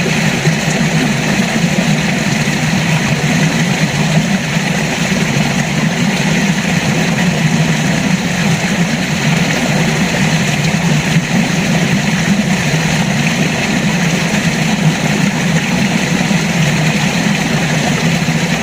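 River water flowing steadily, a constant loud rush with no breaks or changes.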